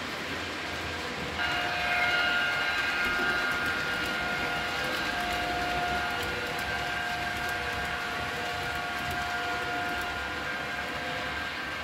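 Model railway train running on its track with a steady rolling rattle. About a second and a half in, a steady high whine from the electric motor and gearing joins it.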